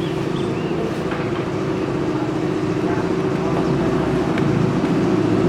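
A large engine idling steadily with an even, fast pulse, growing a little louder near the end.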